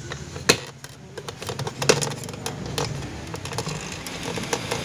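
Plastic door-trim clips clicking and snapping as the pull-handle trim piece is pried off a Ford Ranger rear door panel. An irregular run of sharp clicks, the loudest about half a second and two seconds in.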